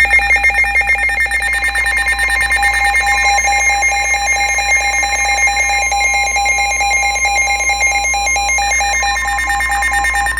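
Weather radio warning alert tone: a loud, steady electronic alarm with a buzzy, rapidly pulsing edge, held for about ten seconds and cutting off sharply. It signals that a warning broadcast, here a severe thunderstorm warning, is about to follow.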